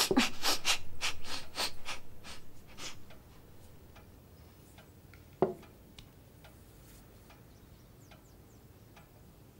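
A woman coughing and gasping after gulping down a glass of spirits, a quick run of coughs that fades out about three seconds in. A single knock follows a couple of seconds later.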